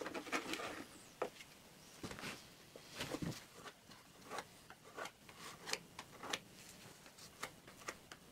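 Faint, irregular scraping and small clicks of a plastic spreader working thickened epoxy filler onto a fiberglassed wooden pontoon hull, filleting rough spots before painting.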